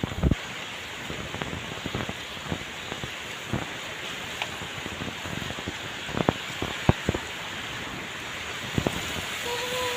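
Steady rain, with scattered louder drops striking close by.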